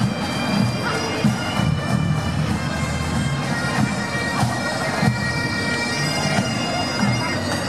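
A pipe band's bagpipes playing, with steady droning tones under the melody.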